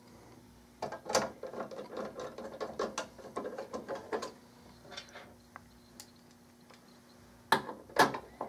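A screwdriver drives a screw back into the sheet-metal front cover of a battery cartridge, making a run of rapid clicks. The clicking goes quiet for a few seconds, then two louder clicks come near the end.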